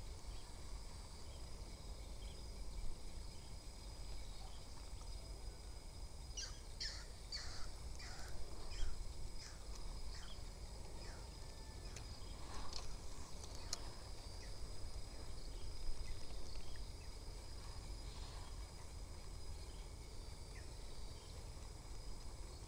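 Insect ambience by a weedy creek: a steady high-pitched insect drone, with a quick run of sharp chirps about a third of the way in and a low rumble underneath.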